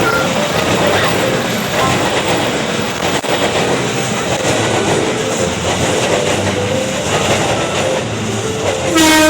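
Train running past with the steady rumble and clatter of its wheels on the rails. Near the end a loud horn sounds.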